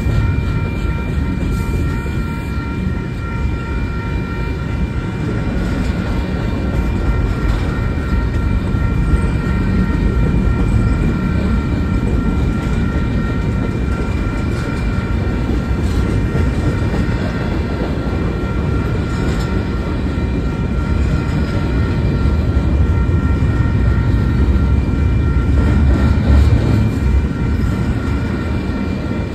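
A train rolling past at close range, a steady heavy rumble of wheels on rail, with a few thin high steady tones held above it. The rumble swells near the end.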